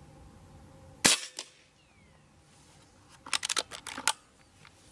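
Shroud-suppressed Reximex Zone 5.5 mm (.22) PCP air rifle firing one shot: a sharp crack about a second in, followed by a fainter click. About three seconds in comes a quick run of metallic clicks as the rear cocking lever is worked to load the next pellet.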